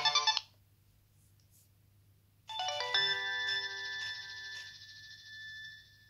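Nokia 3220 ringtones playing through the phone's loudspeaker: a quick melody cuts off about half a second in, and after a pause with a few faint key clicks a new tone starts with several notes at once that ring on and die away over about three seconds.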